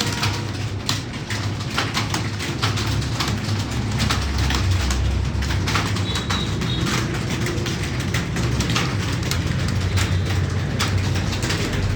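Computer keyboard typing: irregular key clicks several times a second over a low steady hum.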